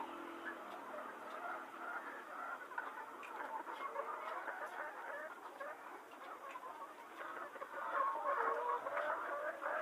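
A flock of Golden Misri chickens clucking: many short calls overlapping, a little louder near the end.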